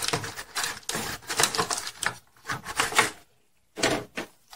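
Foil Pokémon booster pack wrappers crinkling and rustling as hands gather and handle a stack of packs, in a quick run of crackles for about three seconds, then one short rustle just before the end.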